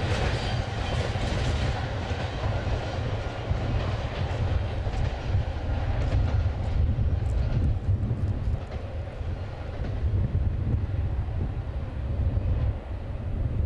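Double-stack container cars of a freight train rolling past: a steady rumble of steel wheels on rail, which grows duller after about two seconds as the train draws away.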